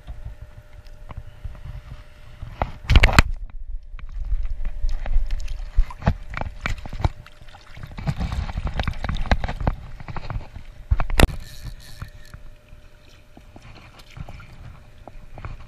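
Water sloshing and splashing as hands dip into the river and a fish splashes at the surface, with irregular knocks and clicks of handling close to the microphone. Two sharp knocks stand out, about three seconds in and again near eleven seconds.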